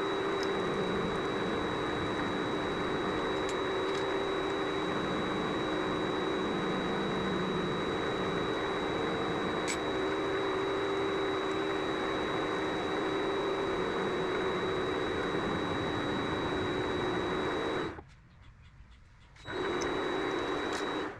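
Mini lathe (Vevor MX400) running steadily with a motor hum and a thin high whine while a scissor-style knurling tool works the part. It cuts off sharply near the end, starts again briefly for about a second and a half, then stops.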